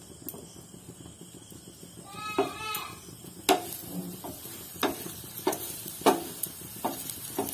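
A wooden spatula knocks and presses a paratha frying in oil on a nonstick tawa, about eight sharp taps over the last four seconds. A faint frying hiss runs underneath. Shortly before the taps begin there is one short wavering call, like a goat's bleat.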